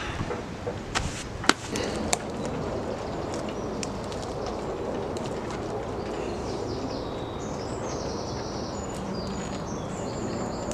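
A few sharp knocks and clicks in the first two seconds as the wooden pole and paracord are worked against the tree. Then steady outdoor background noise, with small birds chirping high and repeatedly from about halfway through.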